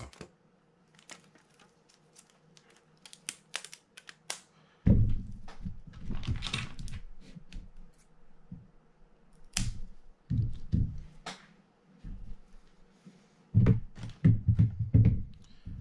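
Handling sounds of a fishing reel's spool and tools on a workbench. A run of quick, light clicks and taps comes first, then heavier knocks and rustling from about five seconds in, as scissors cut the fishing line wrapped on the spool and parts are set down.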